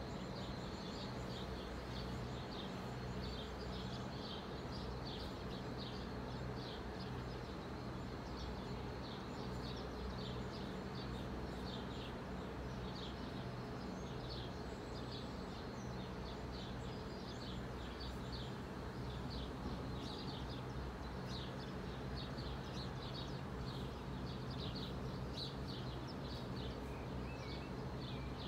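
UK level crossing warning alarm sounding steadily, with birds chirping high above it.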